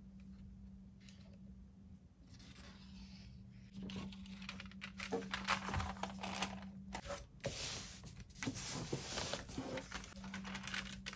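Soft rubbing of a glue stick over paper, then from about four seconds in louder rustling and crinkling as stiff cardstock and envelope paper are picked up and handled, with small taps and clicks.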